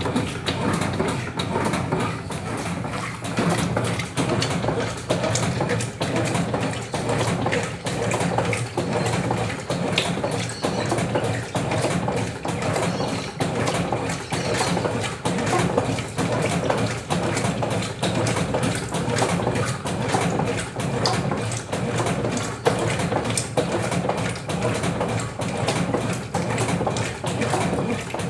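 Brastemp Clean 7 kg (BWC07) top-loading washing machine in its rinse cycle: the agitator churning the water back and forth over a motor hum, surging about once a second.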